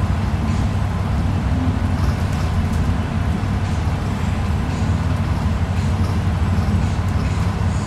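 Steady low rumble of a bus's engine and tyres at motorway speed, heard from inside the passenger cabin.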